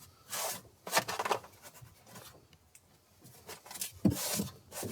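Hand scraping and rubbing in a truck's engine bay, clearing out a dead mouse and its debris: several short scrapes and rustles, with a sharp knock about four seconds in.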